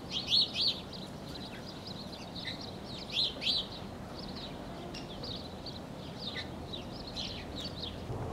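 Small songbirds chirping: a busy run of short, high chirps, with louder pairs about half a second in and about three seconds in, over a faint low background rumble.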